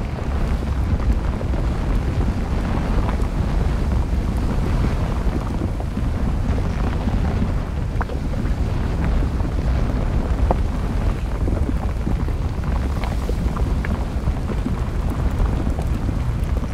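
Steady low rumble of a volcanic eruption, with scattered sharp crackles and pops from the flowing lava.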